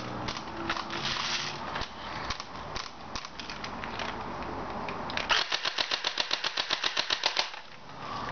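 Well D-94 FirePower electric airsoft rifle firing on full auto: a rapid, even string of shots, about ten a second, lasting about two seconds and starting about five seconds in. Before the burst there is a stretch of rustling noise with scattered clicks.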